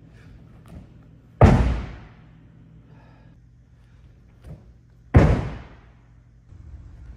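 Two heavy slam-like thuds about four seconds apart, each dying away over about half a second.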